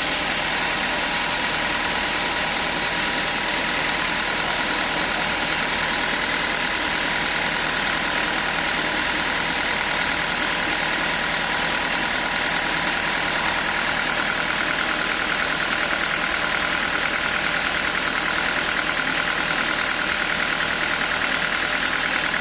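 Sawmill machinery running steadily: a continuous mechanical drone with a steady high whine through it.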